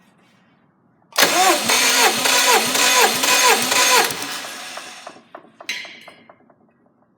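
Subaru EJ255 2.5-litre turbocharged flat-four engine turned over by its starter motor. It cranks loudly for about three seconds with a pulsing rise and fall in pitch about twice a second, then winds down without catching. A knock and a few clicks follow near the end.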